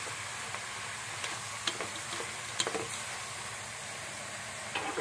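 Small shrimp and pineapple chunks sizzling steadily as they stir-fry in oil in a metal pot, turning golden before the water goes in for sour soup. A few light knocks of a wooden spoon against the pot are heard as it stirs.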